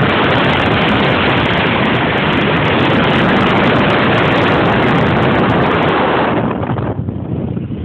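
Loud rushing wind and road noise in a Porsche at high speed, heavy on the microphone, with no clear engine note. It starts suddenly and dies away about six and a half seconds in.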